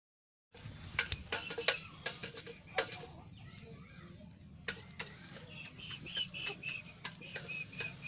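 Scattered sharp clicks and taps, loudest in the first few seconds, then from about five seconds in a run of short high chirps from a small bird, several a second.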